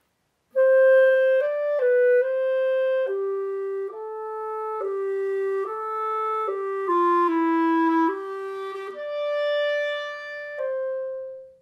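Solo clarinet playing a slow legato phrase of smoothly connected notes, moving mostly by step, beginning about half a second in. It ends on two long held notes, the last tapering off in a diminuendo.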